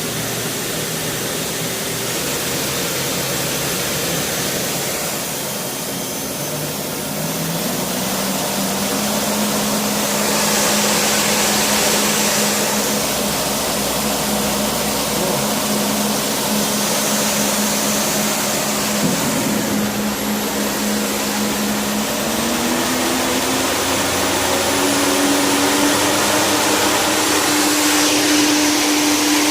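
Okuma Crown 762 SBB CNC lathe running, its spindle drive humming steadily and stepping up in pitch twice, with a few bursts of high hiss of a second or two.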